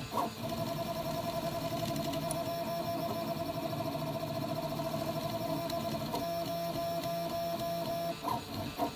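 Hypercube 3D printer running, its stepper motors driving the belts with a steady whine over mechanical running noise. The whine breaks off about eight seconds in, followed by a few short irregular sounds.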